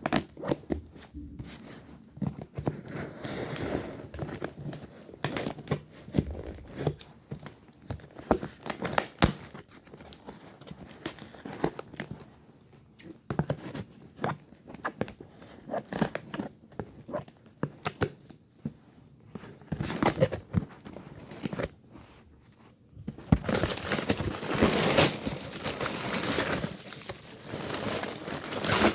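Packaging being torn open and crinkled by hand, with irregular rustling, crackling and tearing that gets denser and louder near the end.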